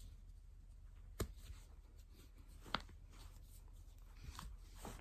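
Joints cracking: two sharp pops, about a second in and a second and a half later, then a few fainter clicks near the end.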